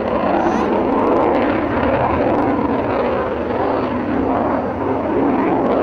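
Military jet flying past, its engine noise a loud, steady rush.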